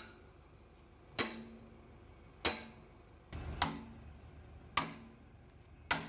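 Sledgehammer blows on the steel pin fittings of a JCB excavator bucket: five heavy strikes about a second apart, each with a short metallic ring.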